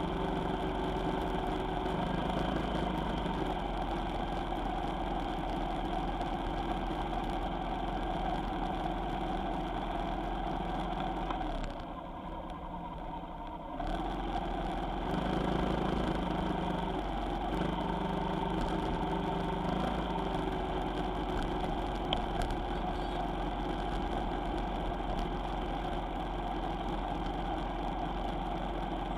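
Vehicle engine running steadily on the road, its pitch shifting a little as the engine speed changes, briefly quieter for about two seconds near the middle.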